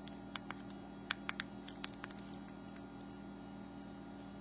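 Steady low electrical hum. Through the first two seconds or so come faint light clicks from fingers handling and tapping the touchscreen of an HTC Touch Diamond phone.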